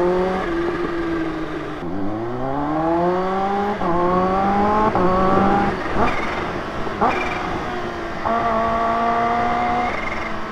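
Kawasaki Ninja H2's supercharged inline-four engine pulling away at low road speed. Its pitch rises and drops back several times, with two short sharp sounds about six and seven seconds in, then holds steady near the end.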